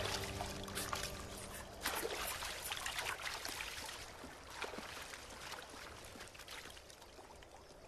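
River water splashing and trickling in irregular bursts, strongest in the first few seconds and growing fainter toward the end. The last of the background music fades out about a second in.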